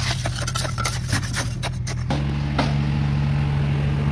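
A steady low mechanical hum, with scraping and rubbing noises over it for the first two seconds. About halfway through, the scraping stops and the hum steps up slightly in pitch.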